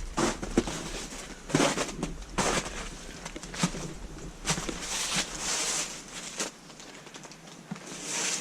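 Irregular crunching and scuffing footsteps over debris, a few steps a second at uneven intervals.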